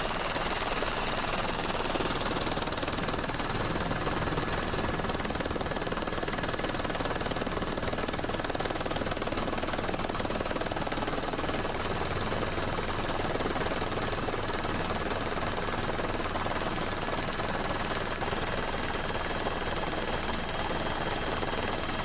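Helicopter engine and rotor noise, a steady unbroken drone with a thin high whine.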